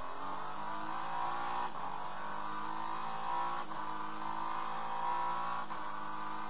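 Acura NSX GT3 race car's twin-turbo V6 heard from inside the cockpit, accelerating hard and upshifting three times about two seconds apart, the pitch climbing between each shift.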